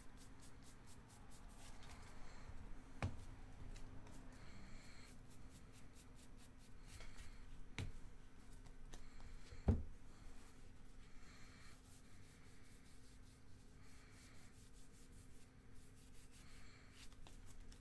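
2019 Topps Gypsy Queen baseball cards being flipped through by hand, the card stock sliding and rubbing with a soft swish every second or two. Three light knocks cut in, the loudest about ten seconds in.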